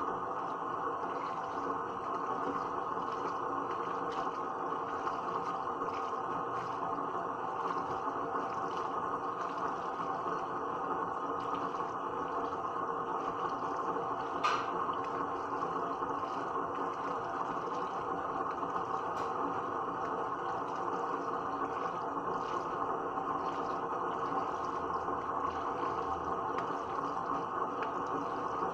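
A steady rushing noise with a faint hum under it, unchanging throughout, and a single sharp click about halfway through.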